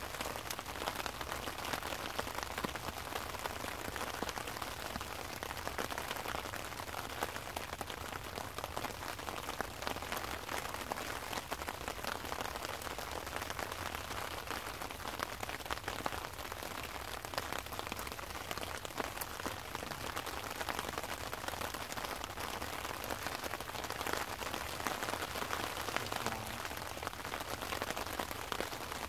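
Steady rain falling, a dense patter of countless small drop hits.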